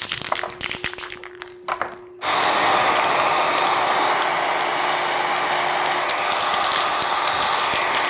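Light clicks and rattles, then, about two seconds in, a small handheld electric blow dryer switches on suddenly and runs steadily, drying a fresh coat of spray paint.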